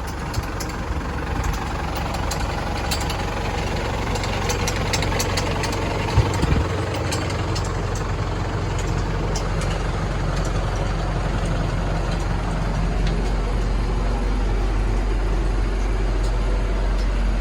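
New Holland LB75B backhoe loader's diesel engine idling steadily, with some light clicks and a single sharp thump about six seconds in.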